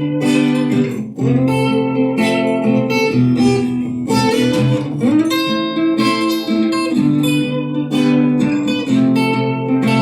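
Instrumental blues passage led by guitars: sustained chords with single notes picked over them, changing every second or two.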